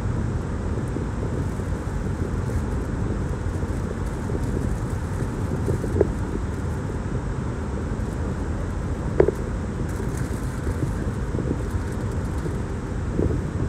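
Steady low rumble of a car heard from inside its cabin, with two brief sharp ticks about six and nine seconds in.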